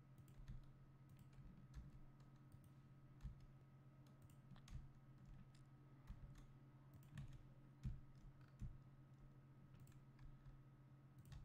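Faint, irregular clicks of a computer mouse and keyboard keys being pressed, over a low steady hum.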